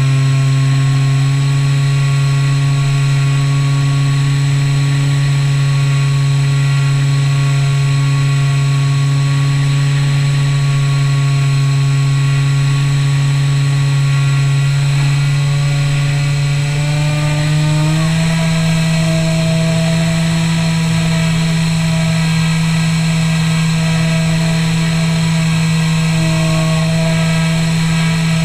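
Skywalker 1900mm RC plane's electric motor and propeller in flight: a steady droning hum that rises in pitch about 17 seconds in and then holds at the higher pitch.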